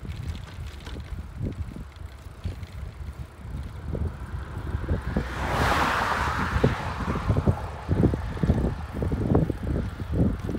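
Wind buffeting a phone microphone on a moving bicycle, with a car overtaking about halfway through: its tyre and engine noise swells, peaks and fades away.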